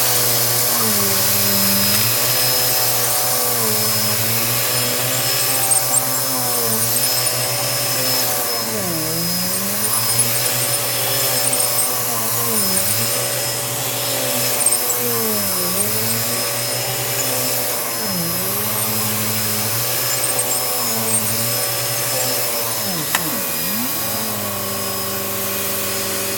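Vacuum cleaner running steadily, its motor hum dipping briefly in pitch about every two to three seconds, with a deeper dip near the end. It is vacuuming up the grit knocked out from under a thick rug.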